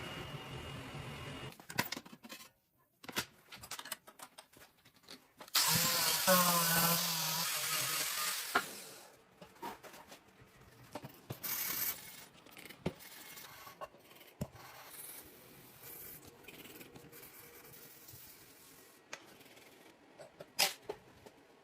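Metalworking with tools on small steel parts: scattered knocks and clicks, and a power tool running loudly for about three seconds a few seconds in.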